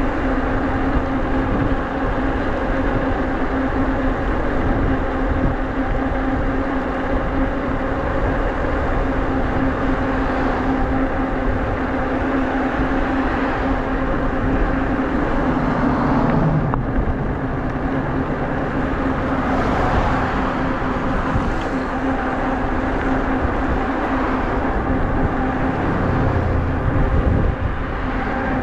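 Nakto F6 electric fat bike running at a steady cruising speed: a constant hum from its rear hub motor and fat tyres rolling on asphalt, over a rumble of wind on the microphone.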